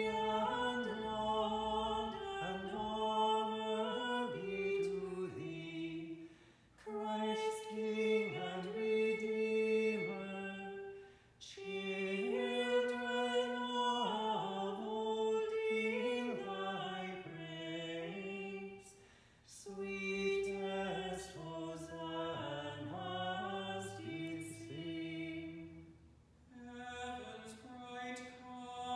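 A single man's voice chanting unaccompanied plainsong in a reverberant church, in long sung phrases with short breaths between them.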